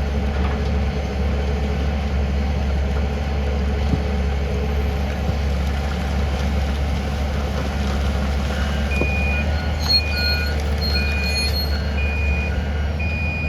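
Heavy excavator diesel engine running steadily with a deep rumble. About two-thirds of the way through, a reversing or travel alarm starts beeping repeatedly, roughly one and a half beeps a second.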